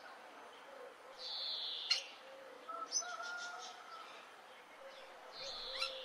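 Birds calling: two high, harsh calls each under a second long, the first about a second in and the second near the end, with a sharp click just after the first and a few soft lower whistled notes in between.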